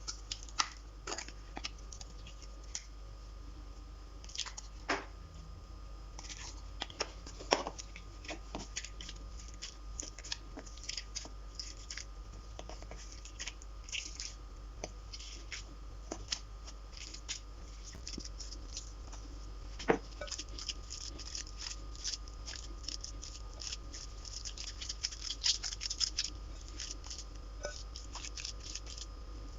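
Homemade flour-and-powder slime being handled, giving a dense run of irregular sticky clicks and crackles. They grow busier near the end, with a few sharper clicks standing out.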